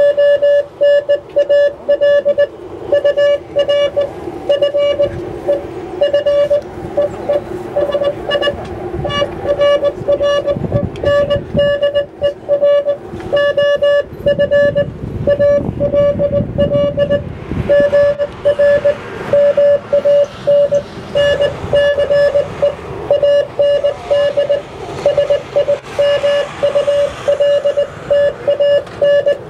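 A single-pitched beep keyed on and off in short and long pieces: Morse code being sent, over a low background rumble.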